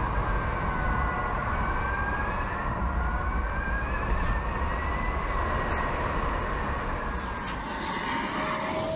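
Rimac electric hypercar at speed: the high whine of its electric motors rises slowly and falls again as it accelerates and slows, over a low rumble of tyres on the road.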